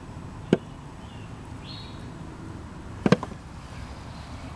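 A single sharp knock about half a second in and a quick double knock about three seconds in, over faint steady outdoor background noise.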